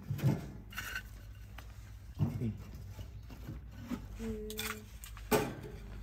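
Firewood being placed by hand into the open firebox of a small stainless-steel tent-sauna wood stove, the sticks knocking and scraping against the metal, with a sharper knock about five seconds in. Brief low murmured voice sounds come in between.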